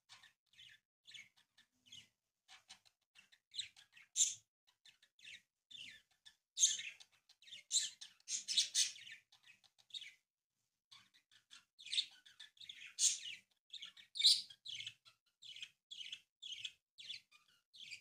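Green origami paper crinkling and crackling as it is folded and creased by hand: many short, irregular crisp crackles, thickest about six to nine seconds in and again around twelve to fifteen seconds.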